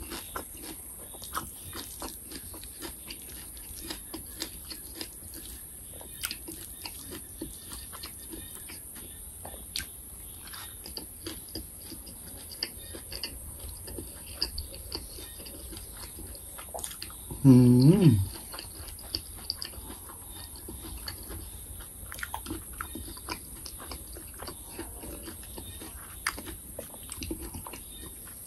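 Close-miked eating sounds: a person chewing mouthfuls of food, with many small wet clicks and lip smacks. About two-thirds of the way through comes one short, loud hummed vocal sound that falls in pitch at its end.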